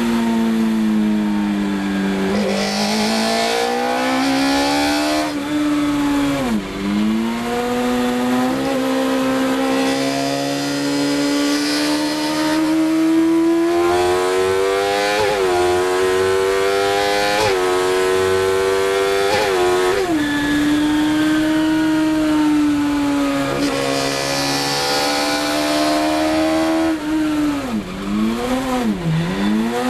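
Race car engine heard from inside the cockpit, revving up and down under hard driving on track. Its pitch climbs steadily, then drops or dips briefly at gear changes and braking, with sharp dips about a third of the way in and again near the end.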